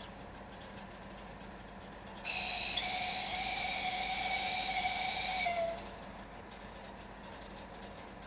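Electric locomotive's air whistle giving one long, shrill blast of about three and a half seconds, starting about two seconds in. The pitch sags slightly as it cuts off. A single long blast is the departure signal.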